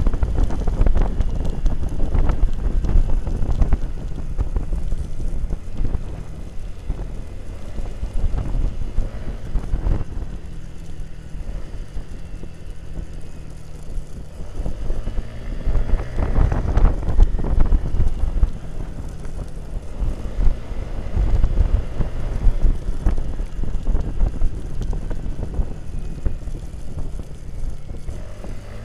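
Wind rumbling on the microphone of a camera riding on a moving motorcycle, with the engine running underneath. It grows louder for a few seconds around the middle.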